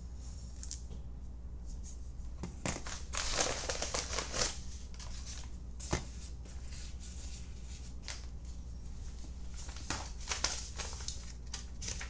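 Packaging being handled: crinkling and rustling in a couple of clusters, with scattered light taps and clicks as small boxes are moved about, over a steady low hum.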